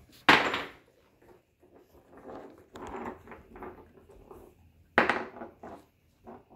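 Mini goldendoodle puppies scuffling over toys on a hardwood floor, paws and claws scrabbling on the boards. Two sudden louder bursts stand out, one just after the start and one about five seconds in.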